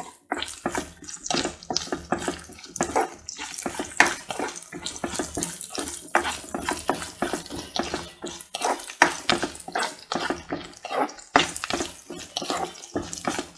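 Sliced shallots, green chillies and curry leaves sizzling and crackling in hot oil in a non-stick pan, with a spatula stirring and scraping through them as they are sautéed until browned.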